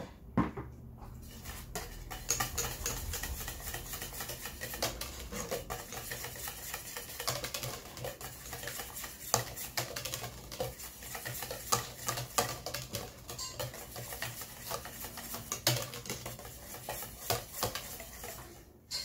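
Wire whisk beating thick béchamel (white sauce) in a stainless steel pot: a quick, continuous run of scraping and clicking as the wires hit the pot's sides and bottom, starting about a second in.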